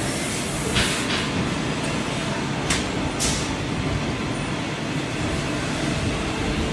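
Hitachi Seiki CNC lathe running with a steady mechanical noise, with short hissing bursts about a second in and twice near three seconds.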